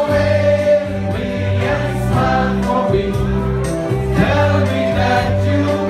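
Music with a group of voices singing together over sustained bass notes.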